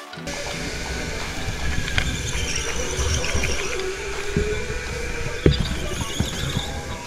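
Go-kart running, heard from on board: a wavering whine with tyre noise and scattered knocks, with one sharp knock about five and a half seconds in.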